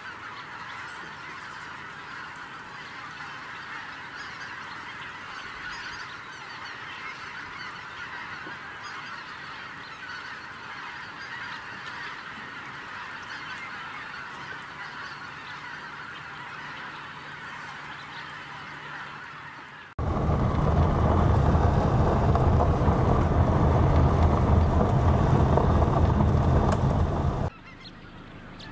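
A dense, steady chorus of honking from a large flock of geese. About two-thirds of the way through it is abruptly cut off by a loud, low rumbling rush of noise lasting about seven seconds, after which the fainter honking returns.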